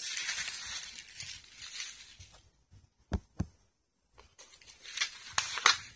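Clear plastic bags holding resin kit parts crinkling as they are handled, with two short knocks in a brief lull about three seconds in. More crinkling follows, with sharp loud crackles near the end.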